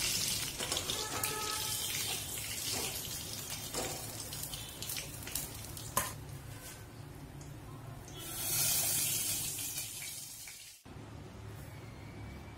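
Hot oil sizzling in a metal wok as a rohu fish head fries, with a few sharp clicks of a metal spatula against the pan. The sizzle swells again about eight seconds in, then cuts off abruptly.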